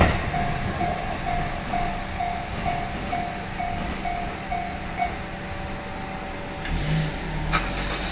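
Japanese railway level-crossing warning bell ringing in evenly spaced electronic dings, about two a second, which stop about five seconds in once the train has cleared. Near the end a car engine rises as road traffic starts across.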